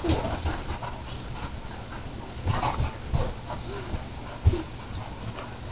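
Puppies play-wrestling: a few brief whines and short dog sounds, scuffling on a wooden floor, and a sharp knock about four and a half seconds in.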